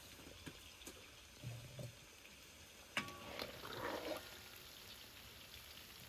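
Hot oil in a large metal kazan sizzling faintly as a skimmer of fried bell peppers is lifted out and drains. About three seconds in there is a sharp metallic clink of the skimmer against the pot, followed by about a second of louder crackling.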